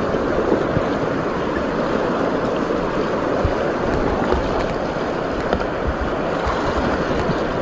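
Whitewater rapids rushing around a kayak: a steady, loud rush of churning river water, with a few brief low thumps.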